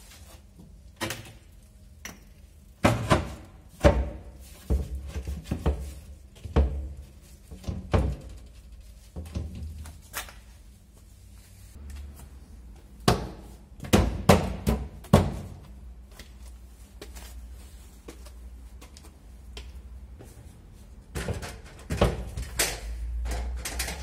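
Wooden blocks and a plank being knocked and shifted into place on concrete steps, a series of irregular hard thunks in clusters. Near the end a ladder's feet are set down on the board.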